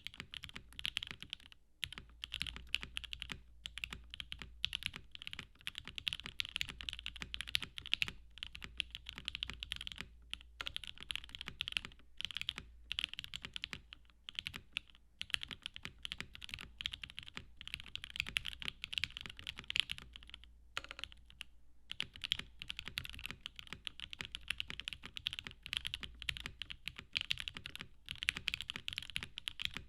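Typing test on an Eniigma Infinitum custom mechanical keyboard with lubed and filmed Alpaca v2 linear switches, a polycarbonate plate and Cherry-profile PBT keycaps: rapid, continuous keystrokes with a few short pauses.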